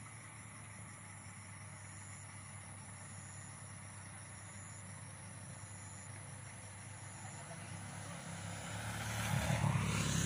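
A motor vehicle's engine running with a steady low hum, growing louder over the last two seconds or so as it comes closer.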